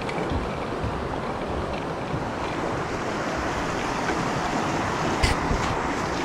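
Creek water rushing steadily over rocks in a fast riffle, with a single short click about five seconds in.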